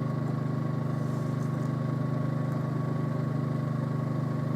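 A steady low mechanical hum throughout, with hot water being poured into a small mug of instant coffee and sugar faintly beneath it.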